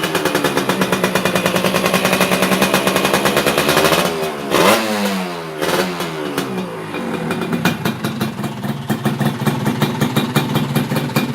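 Two-stroke scooter engine, a Yamaha Touch 125 fitted to a Yamaha Tiara S 120, revving. It is held at high revs for about four seconds, falls away, is revved up once more, then drops to an uneven idle.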